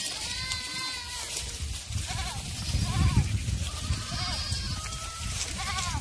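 Herd of Korean black goats bleating, several separate calls overlapping one another, some short and some drawn out, over a low rumble that is loudest about three seconds in.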